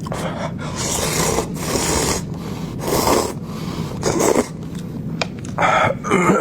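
Close-up eating sounds: hot and sour glass noodles slurped in about five hissing draws, each half a second to a second long, the loudest near the end.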